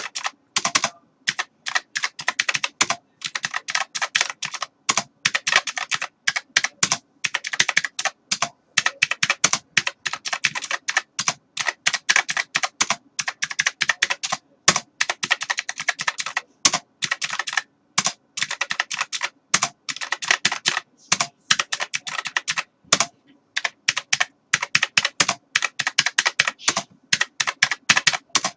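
Computer keyboard being typed on: rapid runs of sharp key clicks, broken every few seconds by short pauses.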